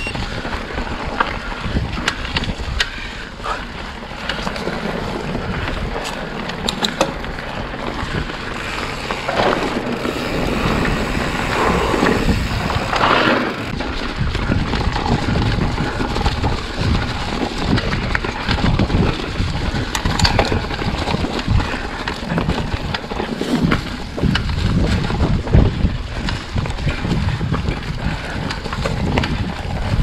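Trek Fuel EX 8 full-suspension mountain bike ridden along a dirt trail: tyres rolling and the bike rattling and knocking over bumps, with wind buffeting the microphone.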